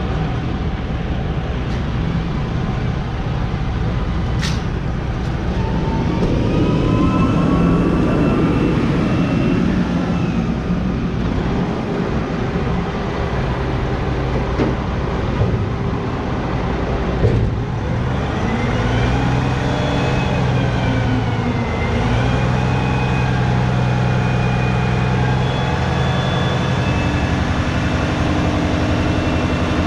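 Heavy truck's diesel engine running while driving, with a steady road noise underneath. The engine pitch rises and falls a few times as it works through speed changes.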